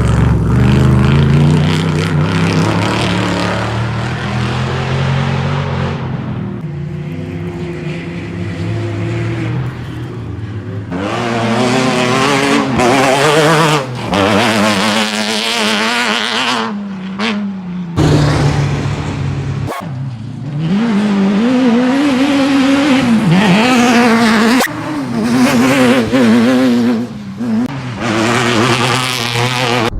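Off-road race car engines revving hard under racing load, pitch climbing and dropping again and again with throttle and gear changes, in a string of short segments that cut off abruptly.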